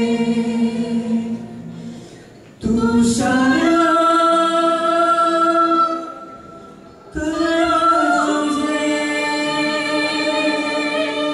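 A female and a male singer holding long notes together in harmony, with acoustic guitars under them: three drawn-out phrases separated by short pauses, the last with its top note stepping down in pitch. These are the closing phrases of the song.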